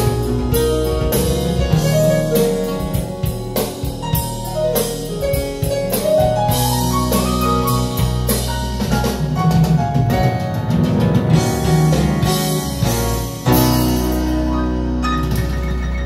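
Music, with piano and drums, played back through ProAc D20r floor-standing loudspeakers in a treated listening room.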